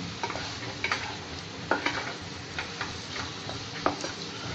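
Paneer masala in a non-stick pan being stirred with a spatula over a gentle steady sizzle, with a few sharp clicks and scrapes of the spatula against the pan.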